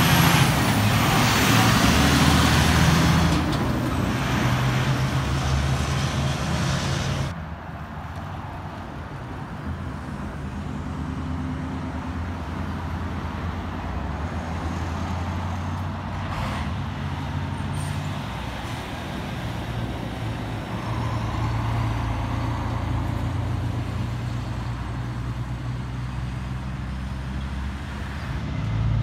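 A Western Star prime mover's diesel engine runs loudly and steadily as the truck pulls through a roundabout close by with its trailer. About seven seconds in the sound drops suddenly to a quieter, more distant truck diesel with passing car traffic.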